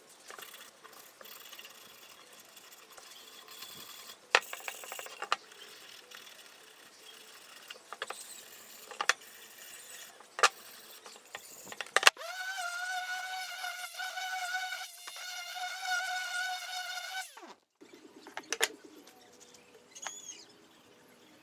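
A small power-tool motor spins up and runs with a steady high whine for about five seconds, then stops abruptly. Sharp clicks and knocks come now and then around it.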